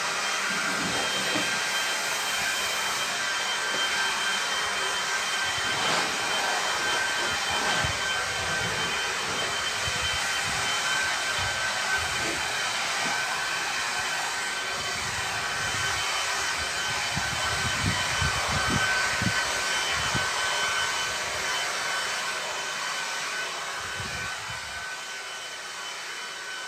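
Ryobi cordless battery leaf blower running steadily: a rush of air with a steady high whine from its fan and an uneven low rumble underneath. It grows quieter near the end.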